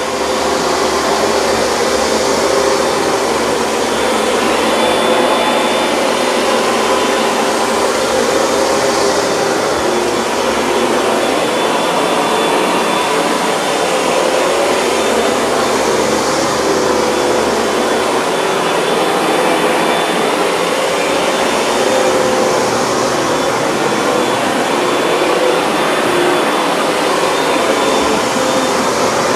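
Hoover Dual Power Max upright carpet cleaner running on rinse and extraction passes over soapy carpet: a steady motor whine and suction hiss with several constant hum tones. The hiss swells slightly every few seconds as the machine is worked back and forth.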